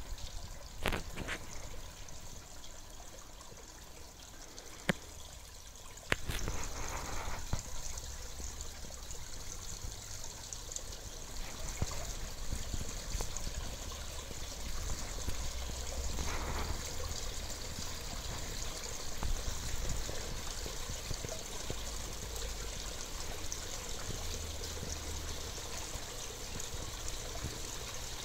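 Water splashing and trickling steadily into a garden fish pond, louder from about six seconds in. A few sharp clicks come in the first six seconds.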